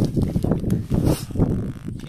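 Wind buffeting the microphone: irregular low rumbling gusts, with a brief hiss about a second in.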